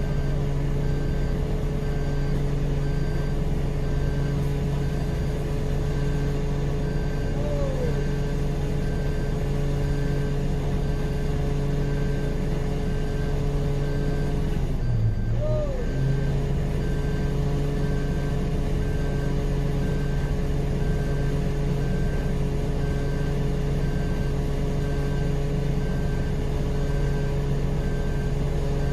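Off-road vehicle engine running steadily under the winching recovery, its pitch dropping briefly about halfway through and then coming back. A few short, rising squeaks sound over it.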